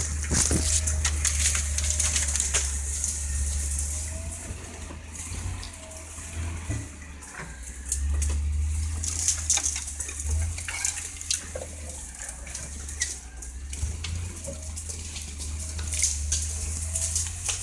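Land Rover engine running with a low rumble at crawling pace while the vehicle pushes through dense bush, its loudness swelling and easing. Branches and brush scrape, rustle and snap against the vehicle throughout.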